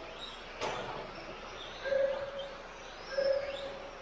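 Electric motors of Tamiya TT01E radio-controlled cars whining as they race on a carpet track, with two short steady whines near the middle, a couple of rising whines as cars accelerate, and a brief knock about half a second in.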